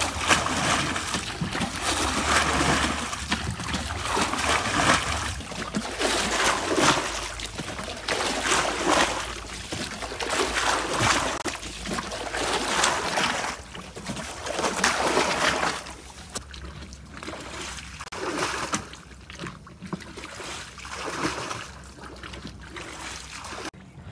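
Water being bailed by hand with a plastic bucket from a muddy ditch: a splash of scooped and thrown water about every two seconds, with water running between them.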